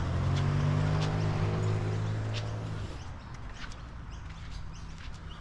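Small birds chirping in short high notes over a low steady hum, which cuts off abruptly about three seconds in.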